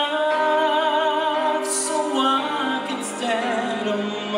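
A man singing solo into a handheld microphone, holding long notes with vibrato.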